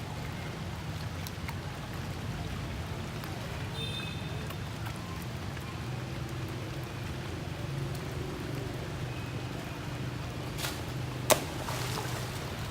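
Rain and trickling water over a steady low rumble, with one sharp click near the end.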